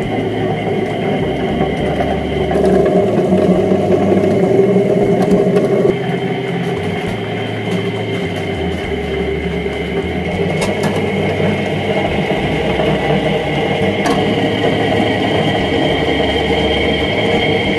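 Electric potato peeling machine running, its motor whirring with a steady whine while potatoes churn against the abrasive drum inside.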